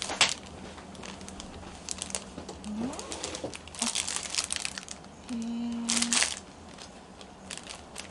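Rustling and crinkling of kimono lining fabric being handled and laid out, in short scattered bursts, with a brief low hum about two-thirds of the way in.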